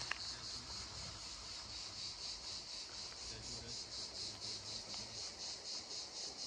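Insects chirping in a steady high-pitched chorus that pulses evenly, about six times a second. A couple of short sharp clicks come right at the start.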